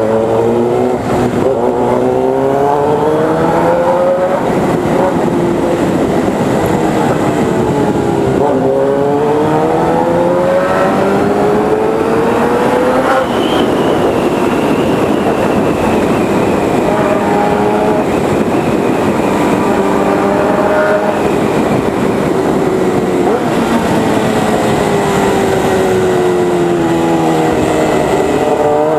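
Suzuki GSX-R 750 SRAD inline-four through a Firetong 4-into-1 sport exhaust, under hard acceleration. The revs climb in three long pulls, each cut by a quick-shifted upshift. Later come shorter pulls, and the revs fall away near the end as the bike slows.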